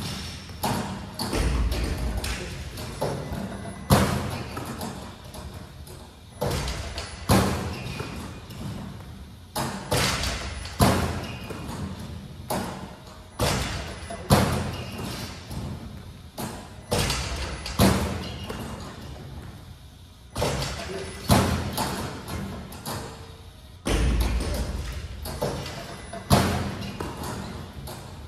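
Basketballs thudding and bouncing on a hardwood gym floor during repeated shooting, a sharp thud every one to three seconds, each ringing out in the echo of a large gym.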